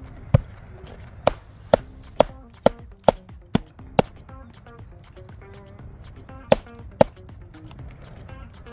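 A heavy knife chopping firewood on a wooden chopping block: eight sharp chops at about two a second, a pause, then two more. The block stands on soil, which soaks up much of the force of each blow.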